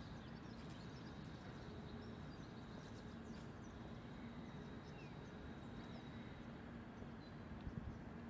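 Outdoor park ambience: a steady low background rumble with faint bird chirps scattered through, and a few light footsteps on the gravel path near the end.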